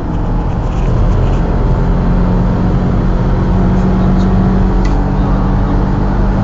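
Car engine droning at a steady pitch, heard from inside the cabin at highway speed, with road noise underneath.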